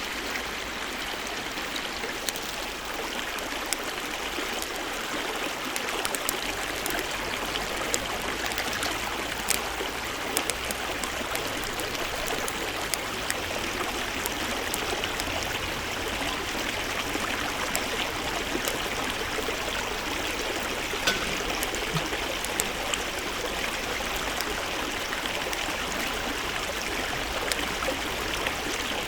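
Black wagyu beef sizzling over a wood campfire: a steady hiss dotted with many sharp pops and crackles. The hiss grows a little louder about six seconds in.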